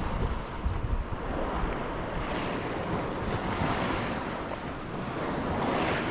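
Sea waves washing in, with wind rumbling on the microphone, heaviest in the first second.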